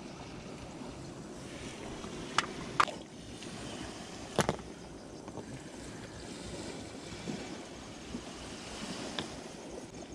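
Steady rush of sea waves and wind, with three sharp knocks: two close together about two and a half seconds in and a third about four and a half seconds in.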